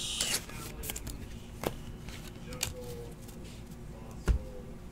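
Trading cards being handled and laid down on a table mat: a soft rustle of cards, a few light taps, and a louder, deeper knock a little after four seconds in.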